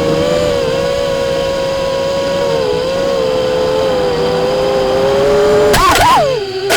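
FPV quadcopter's electric motors and propellers whining steadily, the pitch drifting up and down with the throttle. Near the end, a brief louder rough burst with a quick swing in pitch, then a sharp click.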